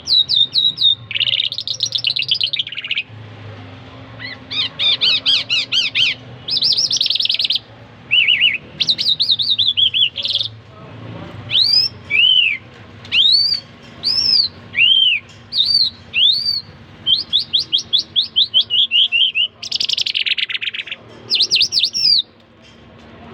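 A caged songbird of the kind kept as 'jal irani' or 'jal mashhadi' singing a long, varied song. It moves between fast trills, downward-swooping whistles and runs of quick repeated notes, with short pauses between phrases.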